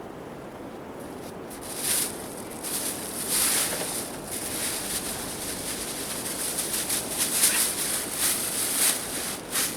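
Strong wind gusting: a steady low hiss, then from about two seconds in irregular surges of high-pitched rushing that swell and fade.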